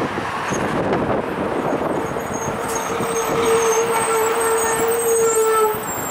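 Rolls-Royce Tay turbofans of a Gulfstream G-IV on short final: a steady jet whine that grows louder and cuts off near the end, over gusty wind buffeting the microphone.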